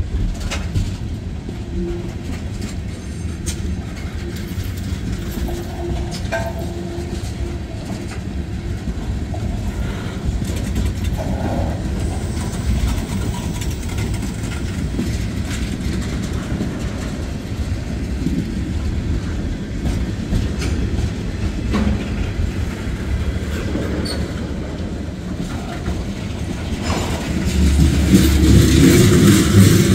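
A long freight train's tank cars and covered hopper cars rolling past on the rails, a steady rumble of wheels that grows louder near the end.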